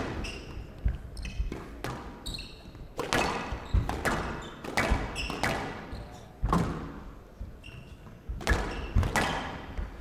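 A squash rally: sharp knocks of the ball against rackets and the court walls, coming irregularly about one or two a second, each with a short echo, and short shoe squeaks on the court floor between some of the strikes.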